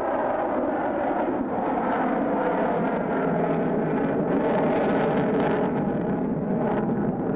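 F-14 Tomcat's twin jet engines during a low flying display, a steady loud roar that swells a little about halfway through.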